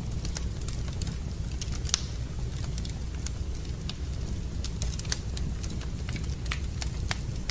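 Wood fire crackling in a fireplace: irregular sharp pops and snaps, a couple every second, over a steady low rumble.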